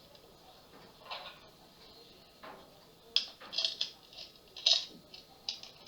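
Wrench clinking and scraping against a metal faucet fitting while it is tightened, in a few short irregular bursts, the busiest about three to five seconds in.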